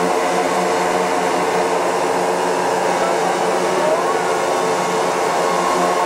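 Several small model-aircraft engines on a large radio-controlled Spruce Goose scale model, running together on the ground with their propellers turning. A steady, even drone.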